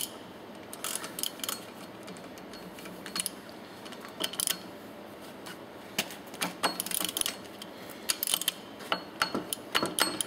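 Socket ratchet clicking in short runs, with small metallic clinks, as the head bolts of a Track C1 piston pump get a final tightening.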